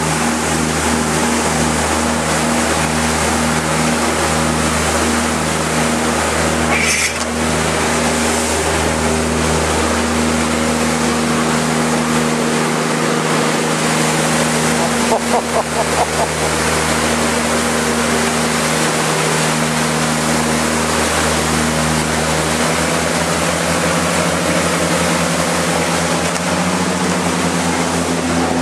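Motorboat engine running steadily under way, over the rush of water churned up along the hull and in the wake, with brief splashes now and then.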